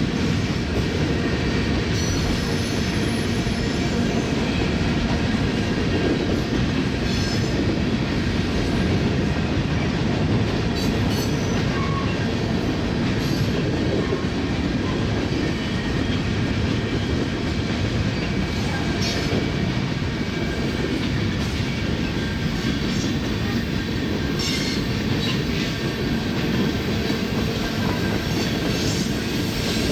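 Union Pacific manifest freight train rolling past: a steady, unbroken rumble of wheels on rail, with brief faint high wheel squeals now and then.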